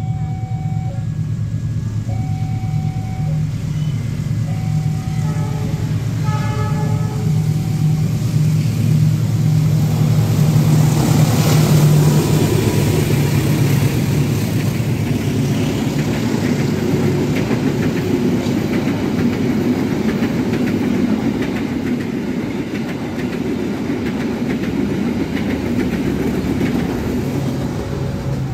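Double-headed diesel locomotives of a passenger train passing at speed: a steady low engine drone with a few short tones in the first seconds, then a rush of wheels and coaches that peaks about ten to fourteen seconds in and carries on as a steady rumble.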